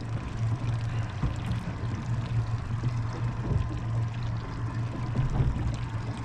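Boat engine running steadily at idle, a constant low hum, with water lapping against the hull.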